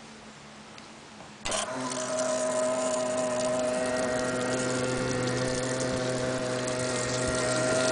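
The 12-volt electric pump of a Lawngroomer tank sprayer switches on about a second and a half in, then runs with a steady hum.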